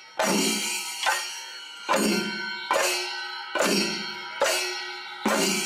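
Struck metal percussion in a slow, even beat, a stroke a little under once a second, each stroke ringing on and fading away before the next.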